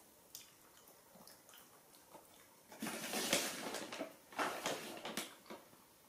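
Foil snack bag crinkling and rustling as it is handled, in a crackly stretch of a few seconds starting about three seconds in, after a few faint clicks.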